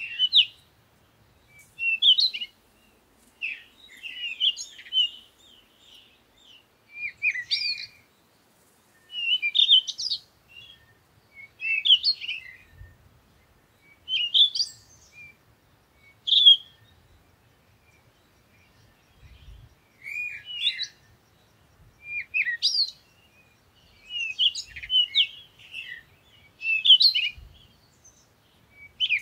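Small songbirds chirping and twittering in short high phrases, a cluster every second or two with brief gaps between.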